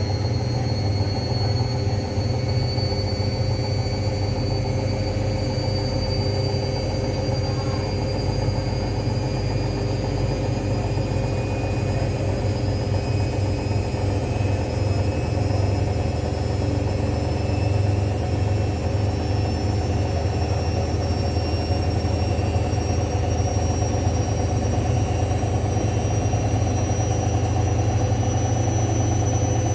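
Hoover washing machine on its spin cycle: a steady low drum rumble under a high motor whine that climbs slowly in pitch as the spin speeds up.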